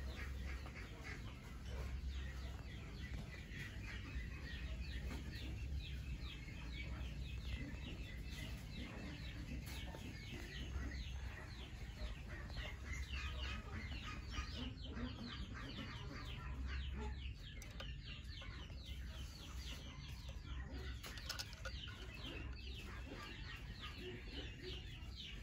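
Young chicks cheeping continuously: a rapid run of short, high, falling peeps, several a second, over a low rumble.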